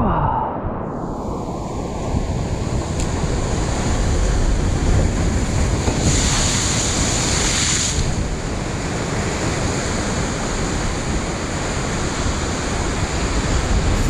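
Rough ocean surf breaking and washing over a rocky shoreline, a steady rushing wash with a bigger wave crashing in about six seconds in.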